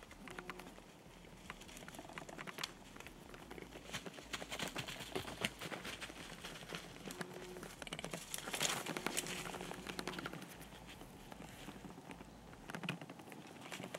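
Irregular rustling and crinkling with many small, sharp clicks and crackles, densest about eight to ten seconds in.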